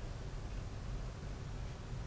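Room tone: a steady low hum with faint hiss and no distinct events.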